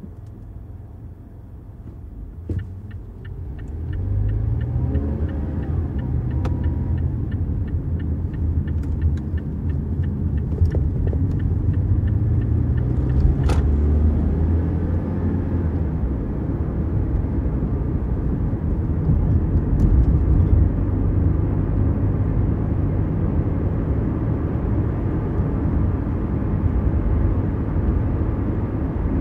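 Mazda CX-5 small SUV heard from inside the cabin, moving off from a quiet idle and driving on, the engine and road rumble rising over the first few seconds and then holding steady. A regular ticking runs through the first several seconds, and a single sharp click comes about halfway through.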